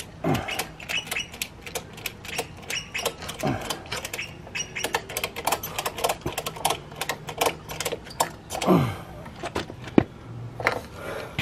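Ratchet strap holding up a motorcycle being worked: a rapid, irregular run of metal ratchet clicks, with three falling-pitch sounds in among them, one near the start, one about three and a half seconds in and one near the end.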